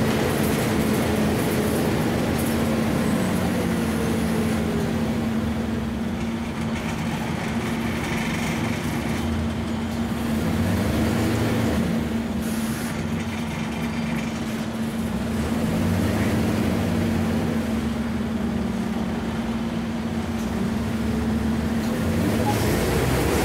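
Scania N94UB single-deck bus heard from inside the saloon while under way: the diesel engine and drivetrain give a steady drone with a constant low whine, and the engine note rises near the end as the bus picks up speed.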